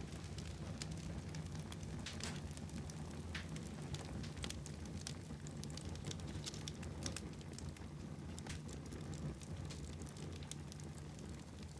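Fire burning in a fireplace, with irregular sharp crackles and pops over a steady low rumble.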